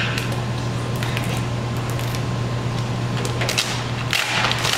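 Thick 5-mil vinyl wrap film rustling with faint scattered clicks as it is pulled and stretched by hand over a car hood without heat, a louder rustle about three and a half seconds in. A steady low hum runs underneath.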